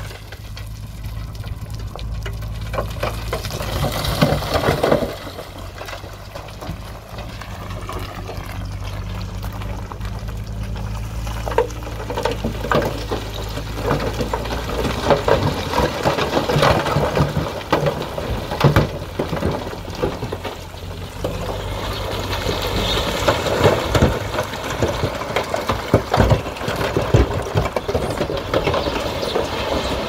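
Dump truck unloading rock: its diesel engine runs steadily with the tipper bed raised while rocks and rubble slide out of the bed and tumble onto the pile, a dense clatter of many knocks that grows busier from about halfway through.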